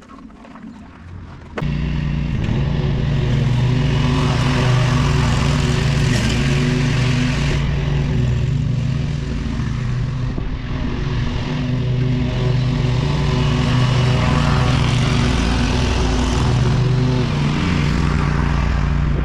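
Small engine of a working machine running steadily at high speed. It comes in suddenly about a second and a half in.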